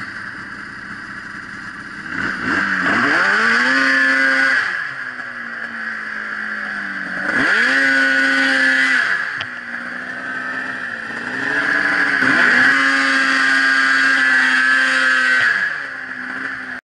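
Snowmobile engine running under throttle while carving through powder. It revs up three times, each time climbing in pitch, holding high for a second or more, then easing off.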